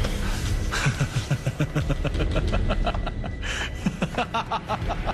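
A man laughing in a long run of quick, evenly spaced pulses.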